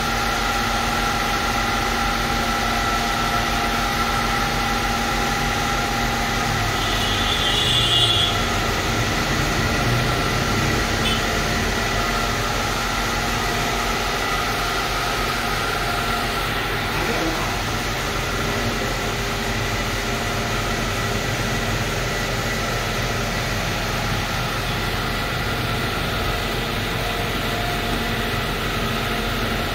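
Belt-driven Carrier open-type refrigeration compressor and its electric drive motor running steadily: a continuous machine hum with constant whining tones and a low drone.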